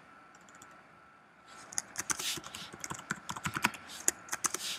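Typing on a computer keyboard: a quick, irregular run of key clicks that starts about a second and a half in, after a quiet opening.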